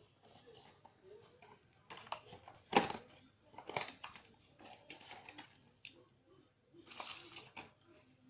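Accessories and their plastic packaging being handled: irregular clicks and knocks with short crinkling rustles. The loudest knock comes about three seconds in, and a longer rustle comes near the end.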